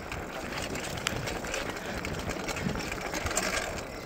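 Wind rushing over the microphone and tyre noise from a mountain bike ridden fast on a road, with a sharp click about a second in.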